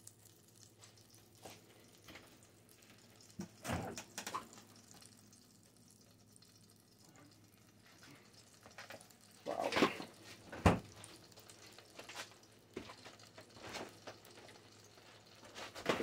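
Butter melting in a saucepan, mostly quiet, with scattered short crackles and pops; the loudest come about four seconds in and again around ten seconds in.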